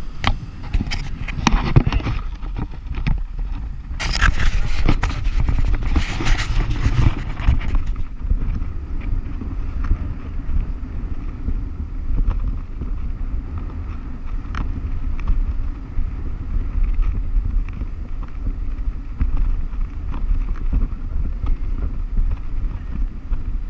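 Sea surf breaking and washing over the rocks, with a louder rush of breaking water from about four to eight seconds in, over a steady low rumble of wind on the action camera's microphone.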